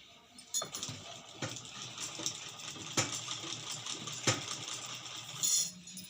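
Fabric rustling as cloth and sewing tools are handled, with a few sharp clicks, the loudest about three and four seconds in.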